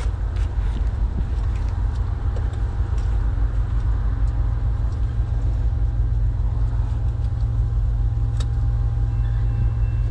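Steady low rumble with a few light clicks from hands working on the engine's wiring and parts.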